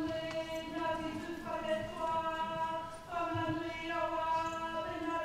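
A group of voices singing a slow song in unison, holding long steady notes with short breaks between phrases.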